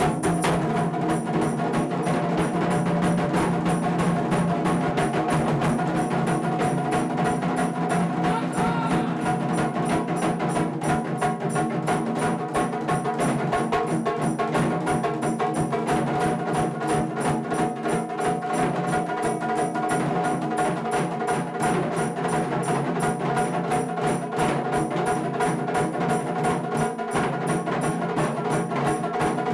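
Japanese taiko drums played as an ensemble: a fast, steady run of dense strikes with sharp, woody hits mixed in.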